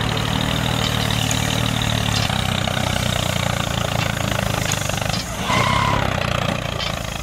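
Steady low engine drone of a tractor idling, heard with a miniature toy tractor as it pushes gravel with its blade. About five and a half seconds in, a short wavering higher-pitched tone cuts in briefly over it.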